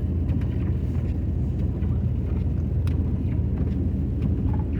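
Steady low rumble of a car driving on a snowy road, heard from inside the cabin: engine and tyre noise.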